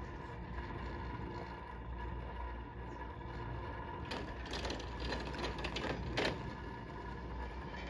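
Chairlift running with a steady mechanical hum. From about four seconds in until just after six, a rattling clatter as the chair's grip rolls over a lift tower's sheaves, sharpest near the end of that stretch.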